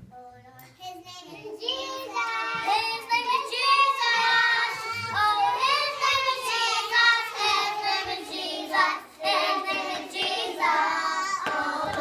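A group of young children singing a song together, soft at first and fuller from about two seconds in.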